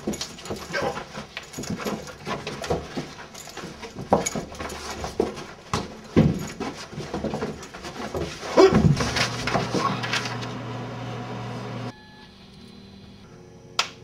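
Two men grunting, yelping and straining as they wrestle, with scuffling knocks of bodies and feet, and a loud drawn-out cry about nine seconds in. About twelve seconds in the sound cuts off suddenly to a faint steady hum, broken by one sharp knock near the end.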